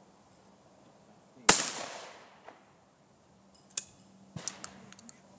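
One loud shotgun shot from a break-action shotgun about a second and a half in, ringing away over about a second. It is followed by a few sharp metallic clicks as the gun is broken open and handled.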